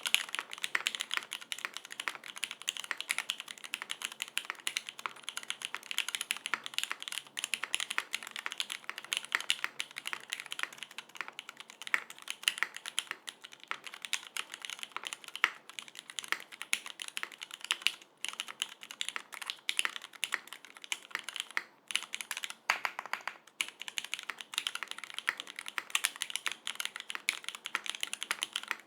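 Continuous rapid typing on a Unikorn R1 mechanical keyboard: lubed vintage Cherry MX Black linear switches in an aluminum full plate with GMK keycaps, giving a dense stream of keystroke clacks. There are a few brief pauses in the typing past the middle.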